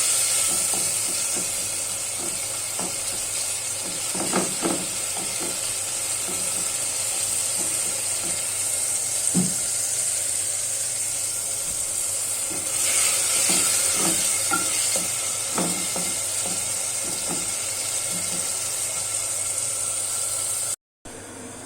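Chopped tomatoes and fried minced garlic sizzling steadily in a pan, with scattered knocks and scrapes of a spoon as they are stirred while the tomato cooks down. The sound cuts out briefly near the end.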